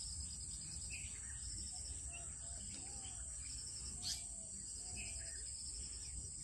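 Rural outdoor ambience: crickets and other insects keeping up a steady high drone with a fast pulsing chirp, and a few short, soft bird calls scattered through. A light tick sounds about four seconds in.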